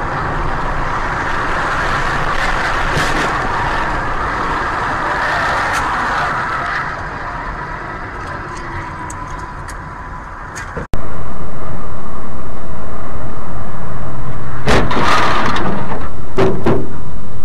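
Steady road and engine noise from a car driving on a highway, easing off slightly. About eleven seconds in it cuts abruptly to a much louder, distorted, steady rushing noise of a moving vehicle, with two sharp noises near the end.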